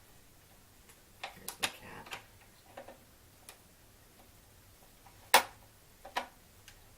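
Small screwdriver driving a screw into the plastic tool caddy of a stick vacuum's handle: scattered light clicks and taps at irregular intervals, the loudest a little over five seconds in.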